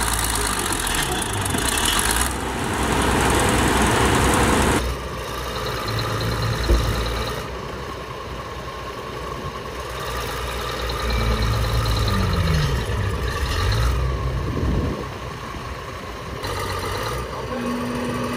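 Heavy diesel engines running, from a Komatsu D60P crawler bulldozer and trucks, with the engine pitch rising and falling a few times in the second half. A single sharp knock about seven seconds in.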